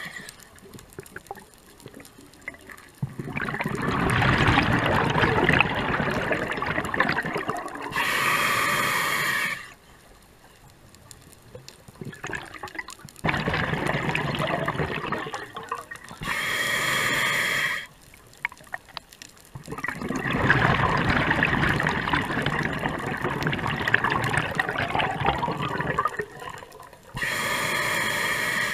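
Scuba diver breathing through a regulator underwater: three long bubbling exhalations, each followed by a short hissing inhale through the regulator, in a slow cycle of roughly nine seconds.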